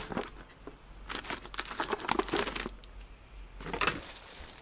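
Plastic shrink-wrap crinkling and rustling as hands handle film-wrapped tins of tomato concentrate. It comes in two spells: a longer one about a second in and a short one near the end.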